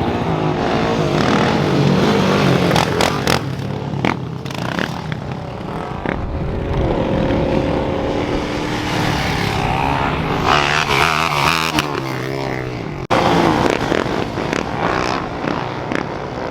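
Several vehicle engines running and revving close by, their pitch rising and falling, with a sharp break about thirteen seconds in.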